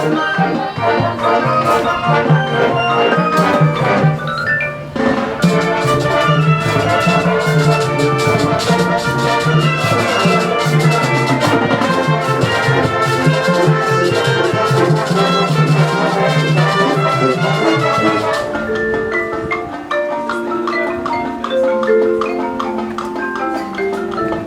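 High school marching band playing: brass with percussion, dense and loud, thinning to a few held lower notes about 18 seconds in.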